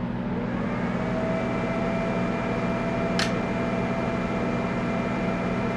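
Delta AFB0612HC 60 mm 12 V fan on the back of a Tektronix 2465 oscilloscope running at full speed: a steady rush of air with a low hum and a whine that rises in pitch during the first second, then holds. A single brief tick about three seconds in.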